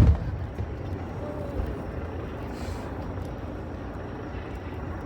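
A firework shell bursts with a loud boom right at the start, its low rumble dying away, followed by a steady low rumble with a few smaller thuds.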